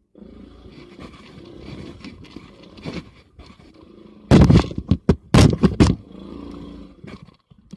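Rough scraping and clattering of hard objects, loudest in a cluster of harsh bursts about four to six seconds in.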